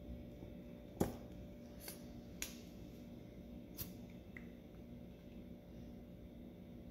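A few light clicks and taps from a plastic glue bottle being handled and squeezed over a paper-mache urn float, the sharpest about a second in and three softer ones over the next few seconds, over a faint steady hum.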